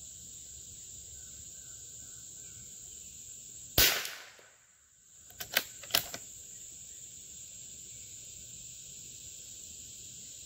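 A single .22 LR rifle shot from a bolt-action Howa M1100 about four seconds in. A quick cluster of sharp metallic clicks follows a second and a half later as the bolt is worked to eject the case and chamber the next round.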